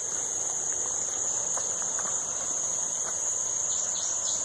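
Insects in the woods making a steady, unbroken, high-pitched buzz.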